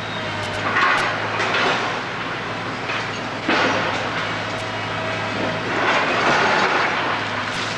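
Demolition machinery at work: a steady low engine drone with repeated loud surges of crunching and scraping rubble.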